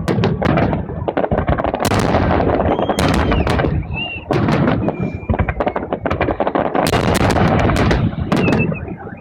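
Fireworks salute going off: a dense, rapid run of loud bangs and crackles, easing briefly about four seconds in and thinning near the end.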